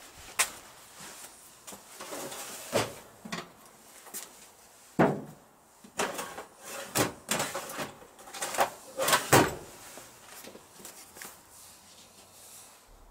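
Irregular knocks, clunks and rustling of things being handled and moved about, as in rummaging through a garage, loudest in a cluster from about five to ten seconds in.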